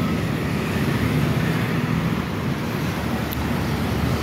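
Steady city road traffic: motor scooters and cars passing close by with their engines running.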